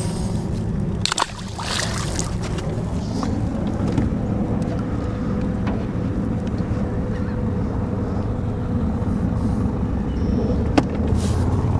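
A boat motor running steadily, a low hum with a faint steady whine, broken by a sharp click about a second in and another near the end.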